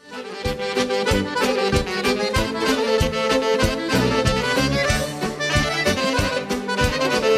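Live band playing the instrumental introduction of a Serbian folk song, the accordion leading over a steady drum beat. The music fades in at the very start.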